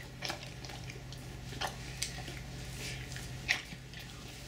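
A steady low hum with a few faint, scattered clicks and taps.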